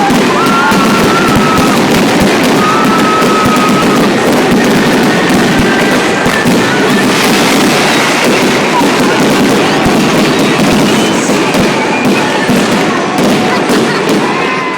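Fireworks display at full intensity: a dense, continuous barrage of bangs and crackling with no let-up.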